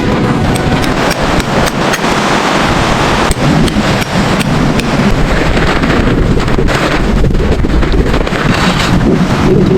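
Strong blizzard wind blasting the microphone in a steady loud rush, with irregular sharp ticks and snaps through it.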